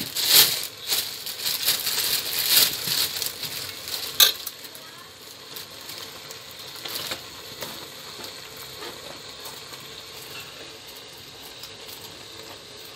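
Mutton in spice masala sizzling in an aluminium pot while a steel ladle scrapes and stirs it, with a sharp metal clink about four seconds in. After that the stirring stops and a quieter, steady sizzle carries on.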